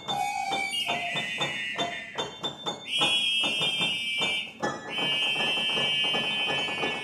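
Contemporary music for an out-of-tune upright piano and a recorder-keyboard: shrill high notes held a second or two each, shifting pitch a few times, over rapid repeated notes at about five a second.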